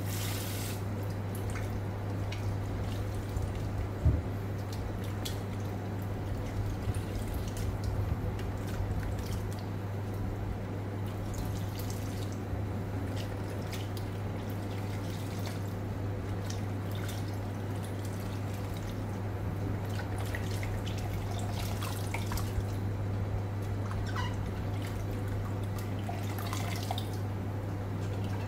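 A kitchen tap runs into a steel pot and is shut off about a second in. Hands then squeeze and rinse wet diced pomelo pith in the pot of water, with scattered drips and small splashes over a steady low hum.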